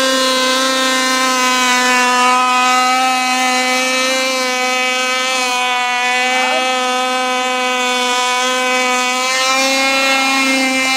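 Small model-airplane engine running steadily at full throttle, a high-pitched buzz that holds almost the same pitch throughout.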